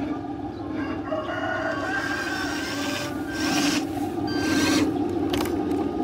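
Steady hum of a 1:10 scale RC hydraulic dump truck's pump motor running, with two short hisses partway through. A long bird call sounds in the background about a second in.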